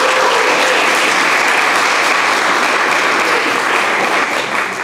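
An audience applauding steadily, easing off slightly near the end.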